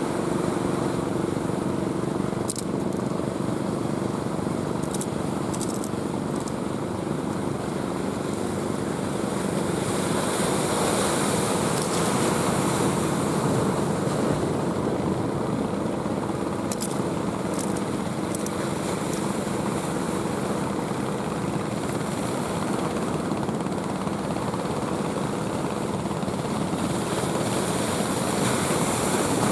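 Ocean surf breaking and washing up the beach as a steady rushing noise, swelling louder about ten seconds in and again near the end. A steady low motor hum runs underneath.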